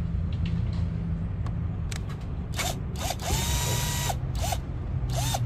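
Handheld power drill run in short trigger pulls: several quick spins and one longer run of about a second, the motor pitch rising and falling with each pull, over a steady low hum.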